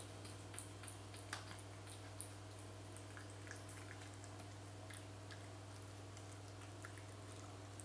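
Cat eating from a bowl: small wet chewing and licking clicks, frequent for the first couple of seconds, then sparse once it lifts its head. A steady low hum runs underneath.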